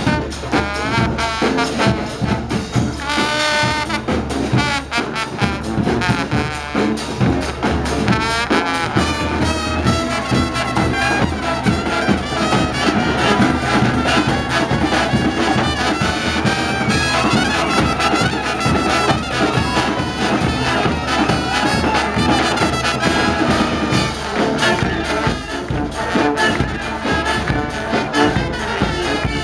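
Live brass marching band playing a loud, continuous tune, with trumpets and trombones over drums.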